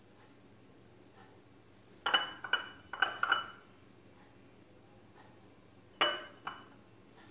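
A glass jar of black olives clinking as it is handled and olives are taken out: a quick run of about four light clinks with a short ring, then two more near the end.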